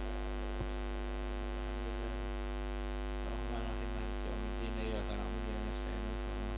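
Steady electrical mains hum from the sound system, with faint murmuring voices rising about halfway through.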